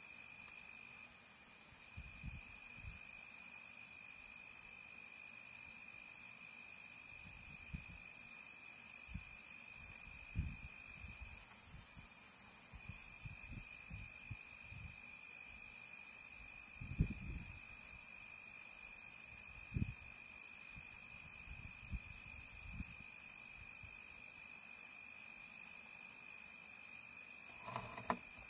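Insects singing steadily at two unbroken high pitches, with scattered low thumps throughout and a short squealing call near the end.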